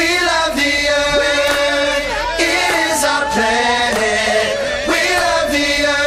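Music that starts abruptly, with long held chanted vocal notes wavering in pitch over occasional percussive hits.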